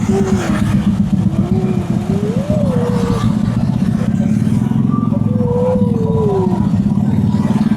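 Motor vehicle engine running steadily on the move, with a higher tone gliding up and down several times over it.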